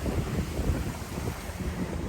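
Wind buffeting the microphone aboard a small tour boat at sea, over a steady rush of water and waves against the hull.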